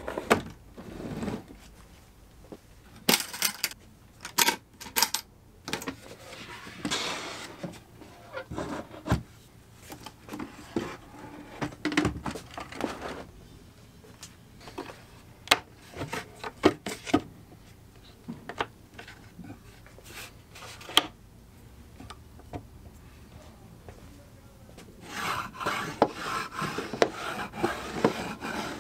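Handmade wooden cantilever tool chest being handled: irregular knocks and sharp clicks of wood and brass hinge arms as its trays and lid are moved. Near the end comes a denser stretch of rubbing and clatter as the small cherry drawers slide in and out.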